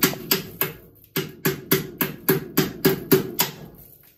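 Hammer blows on a seized, rusted fender bolt, about three to four strikes a second in two runs with a short pause about a second in. Each blow rings briefly, and the last ones grow fainter.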